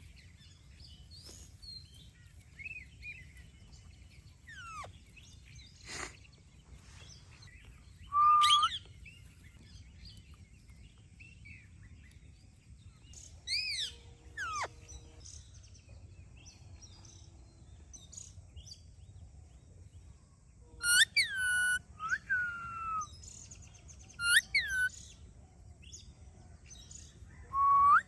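Indian ringneck parrot calling: separate loud, sharply bending calls spaced several seconds apart, with fainter chirps between them and a cluster of loud calls about three-quarters of the way through.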